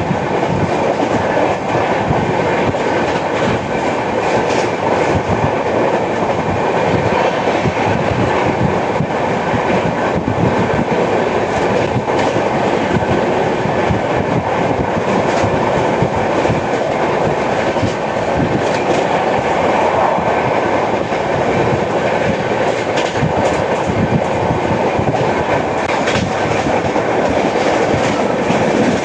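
Indian Railways express train running at speed, its wheels rattling and clattering steadily on the track.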